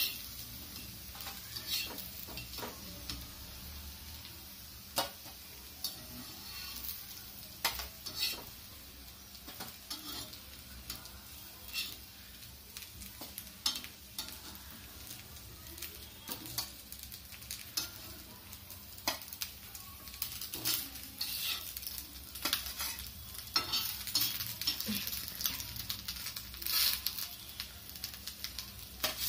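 Steel spatula scraping and clicking on a hot black griddle (tawa) as shallow-fried potato fodi are lifted off and set on a steel plate, over a faint sizzle of oil. The clicks and scrapes come irregularly, about one every second or two.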